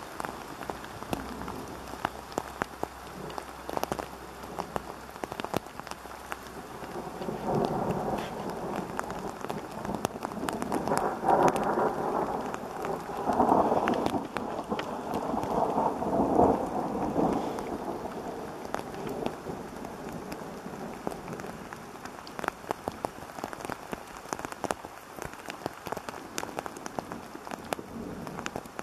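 Steady rain with many sharp drop hits close to the microphone, and a roll of thunder that swells about a quarter of the way in, is loudest near the middle and rumbles away. It sounds somewhat hollow through a wind-noise cover on the microphone.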